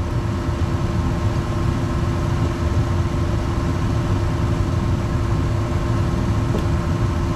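Gas furnace running: a steady low rumble of burners and blower with a constant hum over it, even in level throughout.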